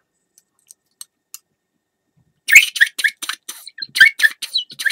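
ACME 575 sheepdog whistle blown in a quick run of about a dozen short notes, each started with the tongue, hopping between pitches. The notes begin about two and a half seconds in, after a few faint clicks.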